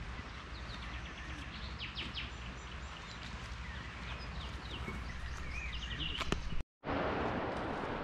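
Small birds chirping in short calls over a low wind rumble on the microphone, with a few clicks of movement. About two-thirds of the way through the sound cuts out briefly and gives way to a steadier rushing noise.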